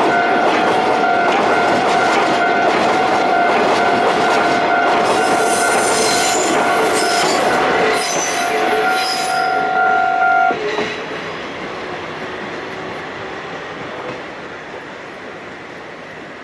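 Coal train rolling over a level crossing: wheels clattering and squealing, with a steady high tone that cuts off abruptly about ten and a half seconds in, after which the train sound falls away and fades.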